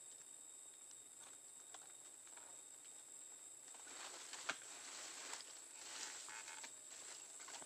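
A steady high night-insect chorus of crickets, with light rustling and snapping of dry leaves and bamboo that grows louder about halfway through. A single sharp click comes a little past the middle.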